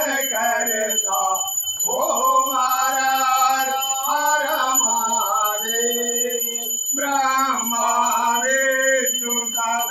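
Hindu devotional singing: a male voice singing long, held notes that bend up and down over music, with short breaks about two seconds in and again near seven seconds.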